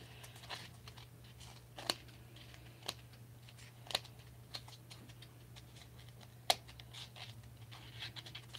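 Small scissors snipping away excess black glitter craft foam (foamy) from a thermoformed doll's shoe: faint, scattered snips and clicks, with four sharper ones standing out.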